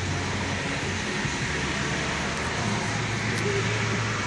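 Steady road and engine noise heard inside a car's cabin, with a low engine drone underneath.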